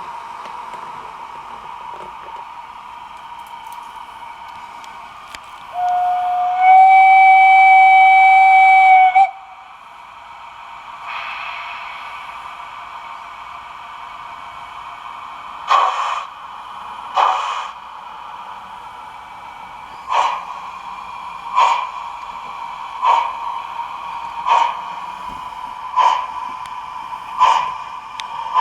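Gauge 1 model steam locomotive's sound system: a steady tone, then a long steam-whistle blast about six seconds in lasting about three seconds. From about halfway, slow, evenly spaced exhaust chuffs come about every one and a half seconds.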